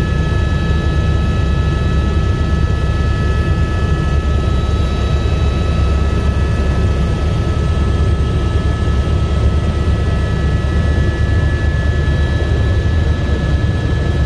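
Airbus AS350 B3e helicopter in steady cruise, heard from inside the cabin: a loud, even rotor and turbine rumble with a steady high whine over it.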